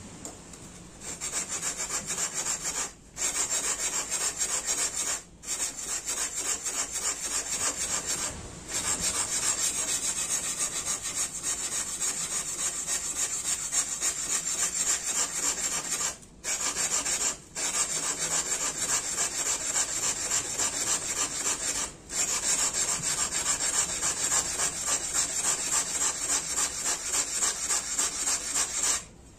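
Steel tanto blade scraped back and forth on a wet whetstone in quick strokes, pausing briefly a few times. The tip section is being ground to form the yokote ridge and the kisaki point.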